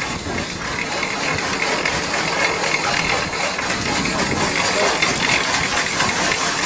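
An engine running steadily, with a hiss over it.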